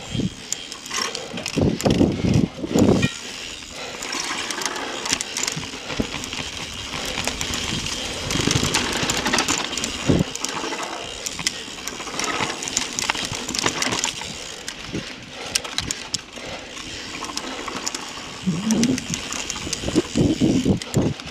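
Mountain bike riding over a dirt and leaf-covered trail: steady tyre and trail noise with a constant rattle of clicks and knocks from the bike, and a few heavier thumps about two seconds in and near the end.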